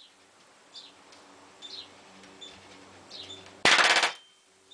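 Palm nailer hammering a round-head twisty nail into a wooden frame: one burst of rapid blows about half a second long, about three-quarters of the way in.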